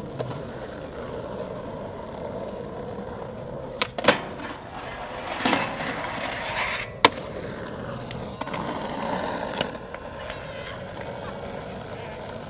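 Skateboard wheels rolling on concrete, then a sharp pop about four seconds in as the board is ollied onto a metal stair handrail. The trucks scrape and grind down the rail for about two seconds, then the board lands with a sharp clack about seven seconds in and rolls on.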